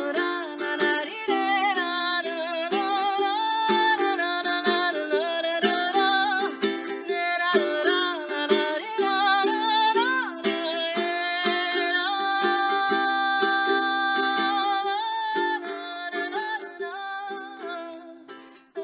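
Music: rhythmic strummed chords on a small plucked string instrument under a melody line that slides and bends in pitch. It fades away near the end.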